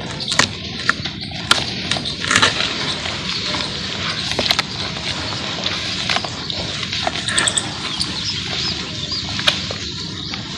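Charcoal paste being squeezed and crumbled by hand in a bowl: a continuous gritty crackle with many sharp clicks scattered through it.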